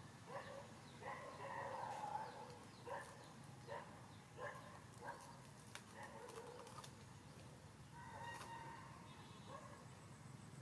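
Faint animal calls: short calls repeating a little faster than one a second, with a longer drawn-out call about a second in and another near the end.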